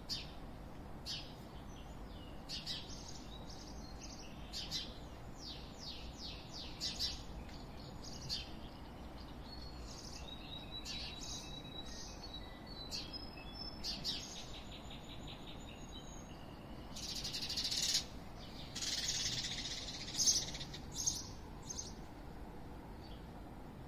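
Small birds chirping and calling in quick series of short high chirps, with a few held whistled notes midway. Near the end come two louder, harsher bursts of about a second each. A faint steady background noise runs underneath.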